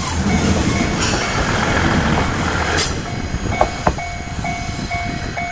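KiHa diesel railcar running over a level crossing, its engine and wheels rumbling on the rails, with two sharp clacks in the second half. From about halfway a repeating electronic tone, the crossing's warning bell, rings alongside.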